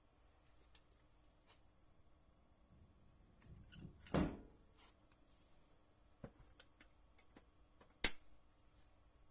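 Scattered clicks and knocks from handling equipment. There is a louder clank about four seconds in and a sharp knock just after eight seconds, over a faint steady high-pitched whine.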